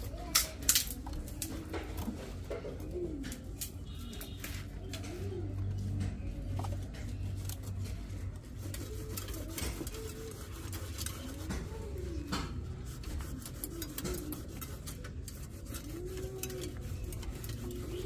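A dove cooing over and over, low rising-and-falling calls every couple of seconds, over a low steady hum. A few sharp clicks stand out near the start.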